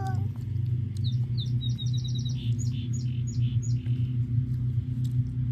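A small songbird singing: starting about a second in, a quick run of high chirps, then a few separate down-slurred notes. A steady low hum runs underneath.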